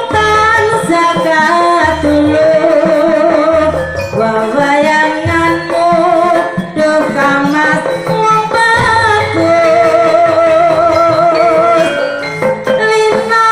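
Javanese jaranan gamelan music: hand-drum (kendang) strokes and metallophones under a high, wavering held melody line, playing continuously.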